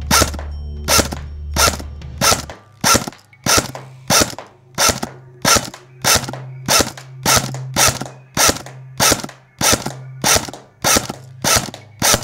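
CYMA MP5A4 battery-powered airsoft electric gun firing single shots in a steady string, about one every 0.6 seconds, some twenty in all. Each shot is a sharp snap.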